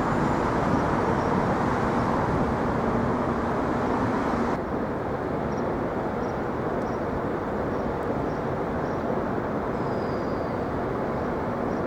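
Steady city street traffic noise: vehicle engines and tyres running by in a continuous rumble, with a faint low engine hum. The noise drops a little about four and a half seconds in.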